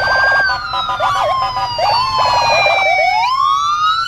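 Police car siren: several overlapping siren tones gliding slowly up and down, with stretches of a fast warbling pulse mixed in.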